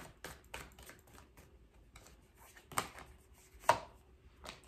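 Tarot cards being handled and tapped down on a table: a scattering of light clicks, the two loudest near the middle, under a second apart.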